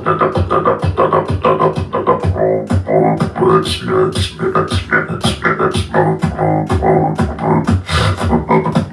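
Man beatboxing: a fast, steady rhythm of vocal kick and snare sounds, about three to four strikes a second, over a held, humming vocal bass line.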